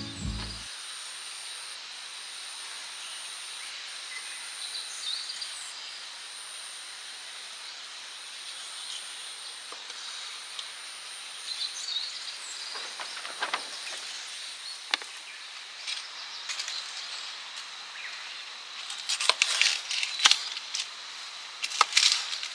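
Quiet outdoor ambience with a thin, high steady insect trill broken by short gaps, then scattered clicks and rustles of handling, growing busier near the end.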